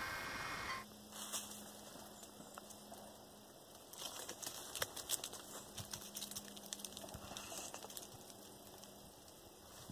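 Cat's claws scratching and gripping pine bark as it climbs the trunk: a faint scatter of short scratches and clicks, busiest from about four seconds in.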